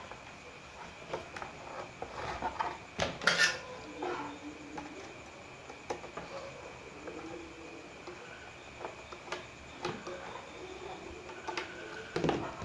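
Hands handling a small Arduino Uno circuit board and the acrylic base of a DVD-drive CNC plotter: scattered light clicks and knocks of hard plastic and board, the loudest cluster about three seconds in. A faint steady high tone runs underneath.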